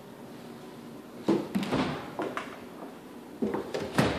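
Knocks and clatter from doors being handled, in two clusters: one about a second and a half in, and one near the end as a side-by-side refrigerator's door is pulled open.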